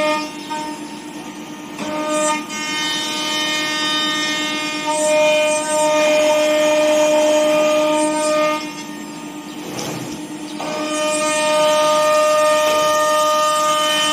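CNC nesting router's ATC spindle running at high speed while routing a wood panel, a steady high-pitched whine with overtones. It gets louder and quieter as the cutter bites and eases off, dropping back twice.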